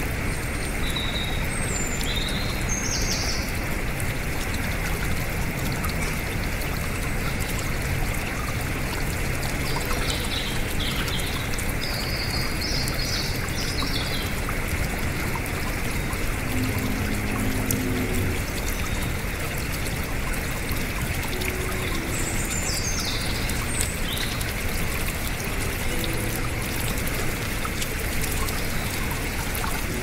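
Shallow rocky stream splashing over small ledges and cascades in a steady rush. Birds chirp briefly over it three times.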